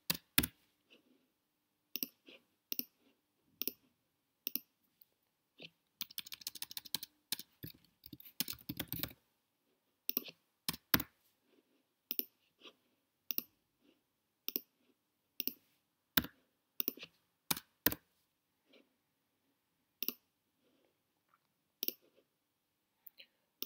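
Computer keyboard typing and single computer clicks, scattered about once a second, with a fast run of keystrokes about a quarter of the way in.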